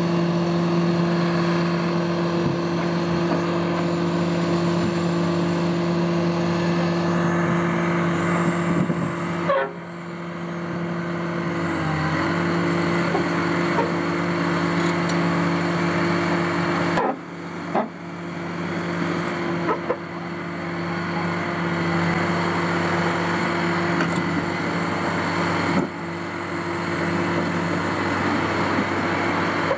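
Heavy diesel machinery running with a steady drone while a crawler excavator pushes an overturned mining dump truck back onto its wheels. The sound breaks off briefly three times.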